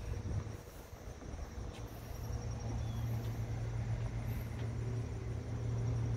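A low, steady motor hum that comes in about two seconds in and holds, with faint high insect chirps above it.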